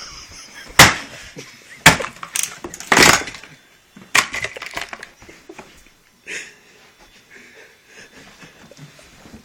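An electric fan being smashed apart: a run of loud sharp bangs and cracks over the first few seconds, the loudest about a second in, with a smaller knock later.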